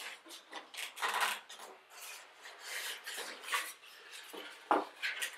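Packaging being handled and rubbed by hand, giving irregular bursts of rustling and scraping, with a sharper knock near the end.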